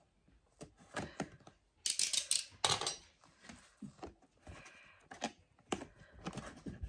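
A cardboard doll box with a plastic window being handled and opened: a run of light clicks, taps and crinkly rustles, busiest about two to three seconds in.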